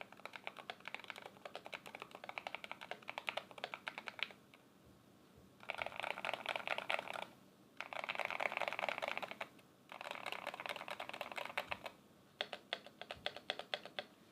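Typing on an Idobao ID80 v1 mechanical keyboard with stock Akko Rosewood muted switches on an aluminium plate. Steady keystrokes for about four seconds, a short pause, then three stretches of very rapid key presses with brief gaps between them, then a few separate strokes near the end.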